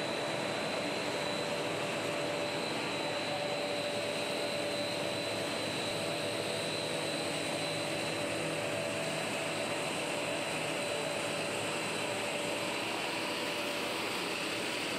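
Dry pet food processing line machinery running: a steady mechanical whirring hum with constant high whining tones from the motors of the extruder and conveying equipment.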